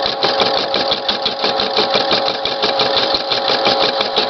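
Brother PE-770 computerized embroidery machine stitching at speed, a rapid, even clatter of needle strokes over a steady motor whine. It is sewing a butterfly's body down over separately cut, loose appliqué wings.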